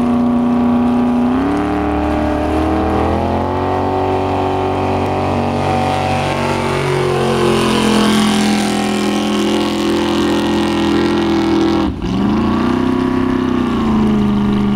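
High-performance speedboat engine running hard at speed. Its pitch climbs a few seconds in, then there is a sudden brief drop in pitch and level at about twelve seconds before it rises again.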